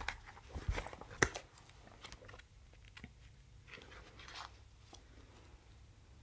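Magazine pages being handled and turned: a few short crinkles and taps in the first second and a half, then faint paper rustling.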